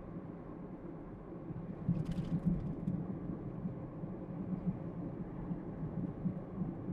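Car driving, a steady low rumble of engine and road noise. A short cluster of faint clicks comes about two seconds in.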